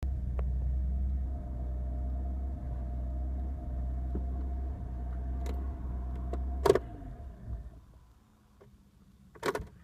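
BMW E46 325i's straight-six engine idling roughly, the fluctuating idle that the owner traced to a faulty throttle and broken throttle and accelerator-pedal cables. About seven seconds in there is a loud click and the engine stops and runs down, then a second sharp click near the end.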